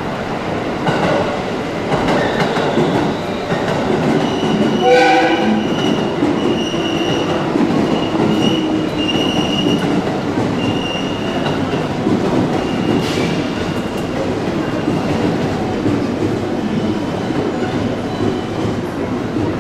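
JR West Yamatoji Line electric train running into the platform, its wheels squealing high on and off with a slowly falling motor tone under the running noise. A short horn toot sounds about five seconds in.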